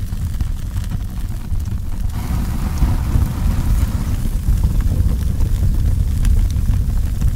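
Fire sound effect: a steady, deep rumbling roar with faint crackles, joined by a brighter rushing hiss from about two to four seconds in.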